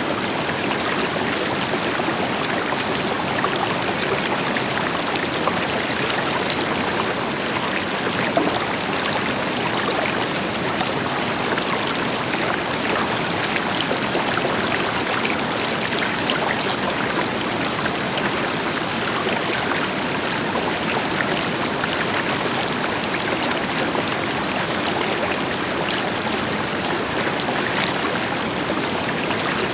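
River water flowing and splashing over rocks, with a distant waterfall adding a deeper rush underneath. The sound is a steady, even rush with no birds.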